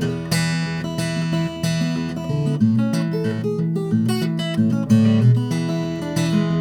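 Martin 00-42 Custom acoustic guitar, a 00-size body with an Italian alpine spruce top and a Madagascar rosewood back, played solo. A continuous run of plucked notes and chords rings over a moving bass line.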